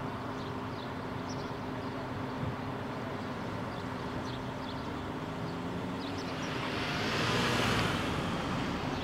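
Street traffic ambience: a steady low engine hum with faint high chirps, and a car driving past about seven seconds in, its noise swelling and then fading.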